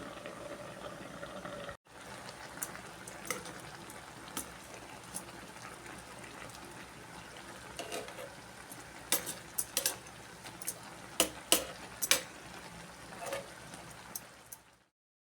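Chicken adobo with potatoes simmering in a pan: a steady bubbling hiss, with a brief break about two seconds in and sharp pops and clicks growing more frequent in the second half.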